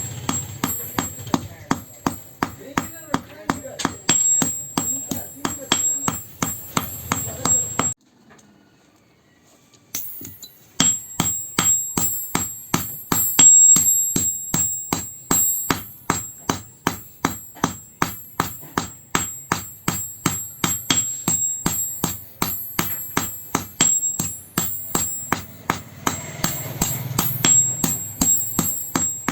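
Hand hammer striking steel from an old vehicle spring on an anvil as it is forged, in a steady rhythm of about three blows a second, each with a bright metallic ring. The blows stop for about two seconds a third of the way in, then resume.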